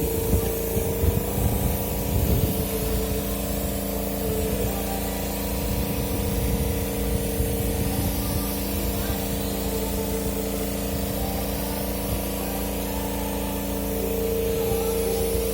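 Small direct-drive (tankless) air compressor running steadily: an even motor hum under a constant hiss of air. There is some irregular low rumbling in the first few seconds.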